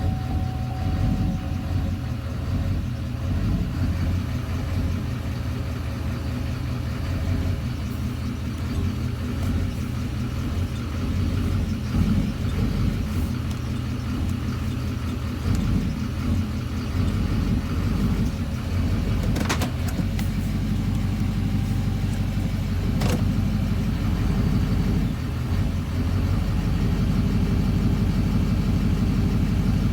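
2009 Duramax 6.6-litre turbo-diesel V8 idling with a lumpy, uneven rumble. Two sharp clicks come about two-thirds of the way through, after which the idle runs steadier and a little louder.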